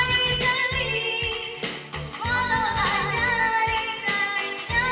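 A teenage girl singing a Malay pop ballad into a handheld microphone over a backing track with a steady beat; she holds one note with vibrato a couple of seconds in.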